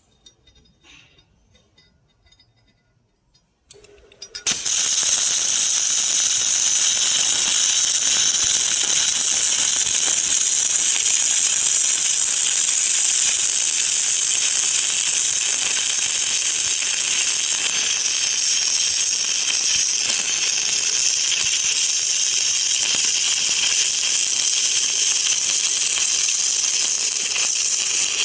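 Electric arc welding: after a few seconds of near silence and a brief low hum, the arc strikes about four seconds in and keeps up a loud, steady crackling hiss as a continuous bead is laid.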